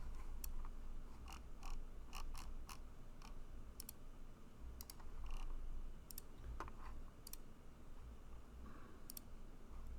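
Irregular computer clicks from a mouse and keyboard, a dozen or so separate clicks spread out, some in quick pairs.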